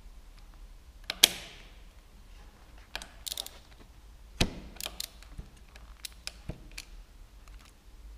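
Metal hand tools and small fittings clinking and knocking while a spanner is worked on a motorcycle's handlebar mounting bolts. The loudest is a sharp metallic clink about a second in that rings briefly, followed by scattered lighter taps and clicks.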